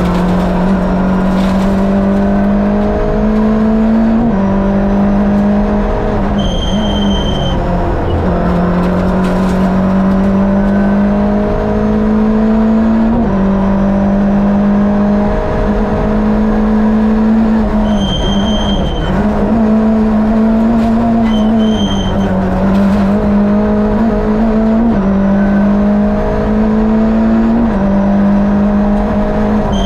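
Fiat two-litre twin-cam four-cylinder engine of a Lada VFTS rally prototype, heard onboard at full stage pace. It revs up through the gears, its pitch climbing and then dropping back at each gear change every three to four seconds. A short high beep sounds several times.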